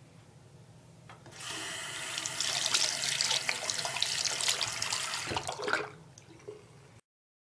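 Bathroom sink faucet running, with a hand held under the stream splashing into the basin. The water comes on about a second and a half in, runs steadily for about four seconds, then is turned off.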